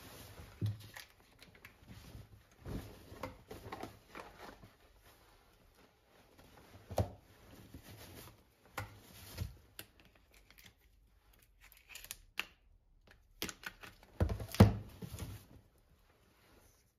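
Fabric shopping bag rustling and crinkling while groceries are unpacked from it, broken by several sharp knocks of boxes and tubs set down on a countertop, the loudest near the end.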